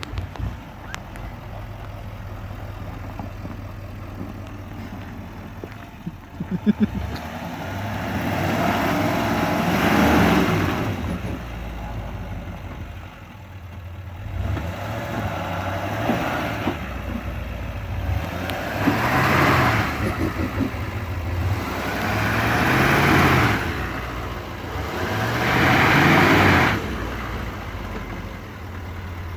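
L5P Duramax 6.6-litre V8 turbodiesel idling, then free-revved about five times. Each rev rises and falls, and the turbo flutters as the throttle is let off.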